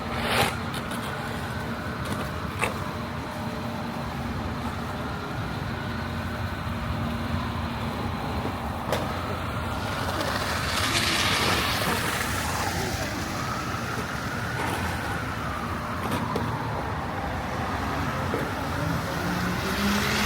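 City street traffic: motor vehicles running and passing, with a steady engine hum, a passing swell about halfway through, a few short knocks, and an engine note rising near the end.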